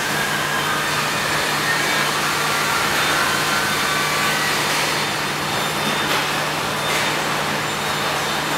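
Steady whirring and hiss of industrial welding robots on a car body-shell production line, over a constant low hum.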